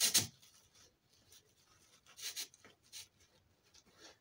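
Artificial flower stems and leaves rustling and scraping as they are handled and pushed into the arrangement: a short burst at the start, then a few faint brief rustles.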